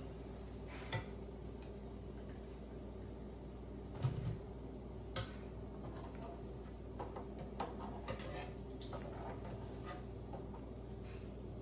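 Scattered clinks and knocks of kitchen utensils against a cooking pot, with one louder thud about four seconds in and a cluster of light clicks a few seconds later, over a steady low hum.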